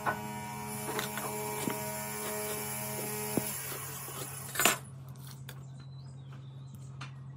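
Metal hand tools clicking and tapping on a pine beam as a steel tape measure and a square are handled for marking out, with one louder clack about two-thirds of the way in. A steady low hum runs underneath.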